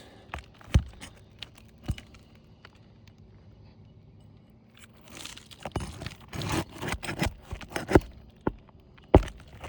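Brittle, delaminating asphalt shingle crackling and tearing as it is pried up and worked loose, with several sharp clicks and knocks. The crackling grows busier about halfway through.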